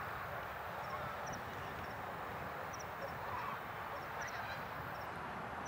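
Steady, even rush of a distant widebody freighter's jet engines at taxi power, with faint high double chirps from small birds repeating every second or so.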